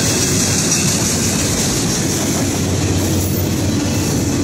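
Enclosed autorack freight cars rolling past: a loud, steady noise of steel wheels on the rails.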